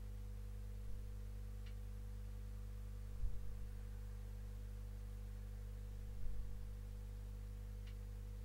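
Steady low electrical hum, with two faint low thumps about three and six seconds in.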